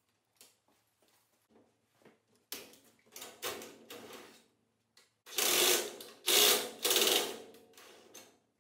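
Metallic ratcheting and rattling as a nut and bolt are worked on the hinge of a steel nest box's perch bar. There are small clicks at first, then three louder strokes past the middle.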